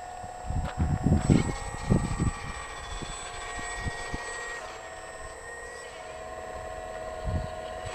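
Hydraulic RC model excavator (Liebherr 946) with its pump whining steadily, the whine shifting in pitch a couple of times as the arm and bucket work. Wind buffets the microphone in gusts for the first couple of seconds and again near the end.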